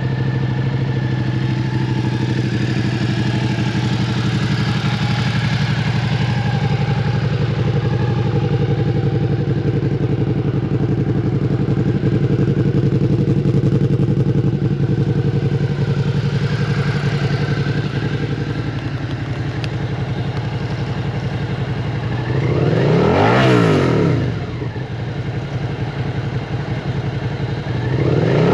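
Suzuki SV650's 645 cc V-twin, fitted with a Scorpion carbon-fibre exhaust, idling steadily. About 22 seconds in it is revved once, the pitch rising and falling back to idle, and a second rev begins at the very end.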